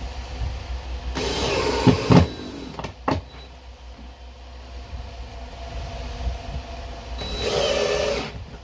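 DeWalt cordless drill running in two bursts of about a second each, driving screws through a plastic toilet flange into a plywood subfloor, with a couple of sharp clicks between them.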